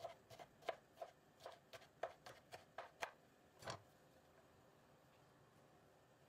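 Kitchen knife chopping fresh broad bean pods into thin rounds on a wooden cutting board: quick, crisp strokes about four a second for three seconds, then a single duller knock.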